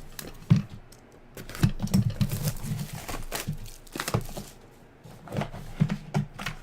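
Trading cards and their packaging being handled: irregular rustling, scraping and light taps and clicks.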